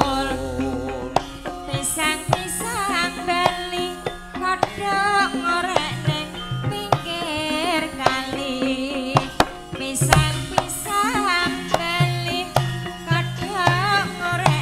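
Javanese gamelan music: a sinden's wavering, ornamented vocal line over sharp kendang drum strokes and steady low pulsing notes from the ensemble.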